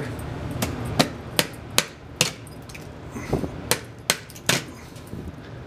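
A hand tool knocking repeatedly on a rusted metal chimney clean-out door: about eight sharp strikes in two runs, a brief pause between them. The door is rusted shut, and the strikes are an attempt to work it open.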